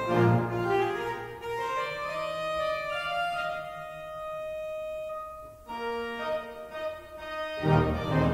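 Church pipe organ playing sustained chords. The bass drops away a couple of seconds in, leaving a single high note held for a few seconds. New chords enter, and the full sound with bass returns near the end.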